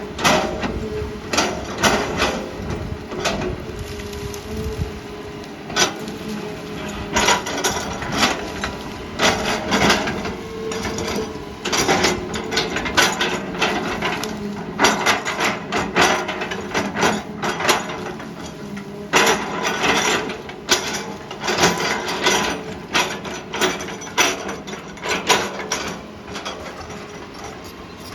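Excavator at work: a steady engine note under frequent, irregularly spaced knocks and cracks throughout.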